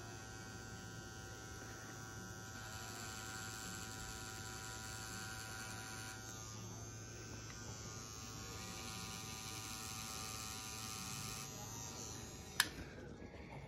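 Rotary pen tattoo machine humming steadily as its needle works ink into skin, then stopping with a click near the end.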